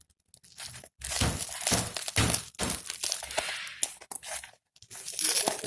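Packaging being handled and opened by hand: irregular crinkling and rustling with a few sharper crackles, stopping briefly twice.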